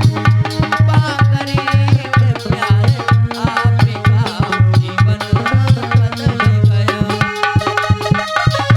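Instrumental interlude of devotional bhajan music: a hand drum plays a steady rhythmic beat under a melodic instrument line, with no singing.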